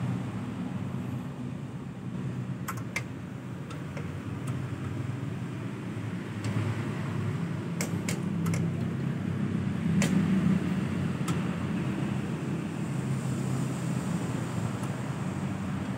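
A steady low motor hum, with a few sharp clicks of hand tools on metal: a pair about three seconds in, a cluster around eight seconds and one at ten.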